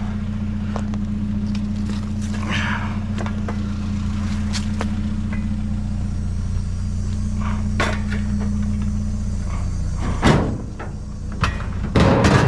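Small pickup truck's engine running steadily, with two loud clunks near the end as the truck door is opened and shut.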